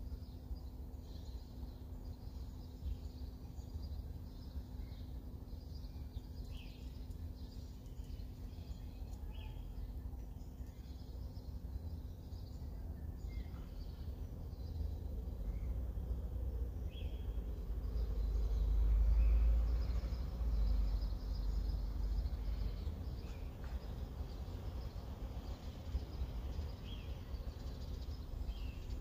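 Outdoor background: a steady low rumble with scattered short bird chirps. The rumble swells for a few seconds about two-thirds of the way through.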